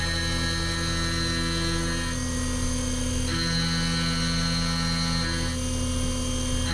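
Doosan CNC vertical mill running a part program: a steady spindle and machine hum, with a higher cutting tone that comes in for about two seconds at a time and drops out between, as the 1-inch end mill makes passes along the metal part.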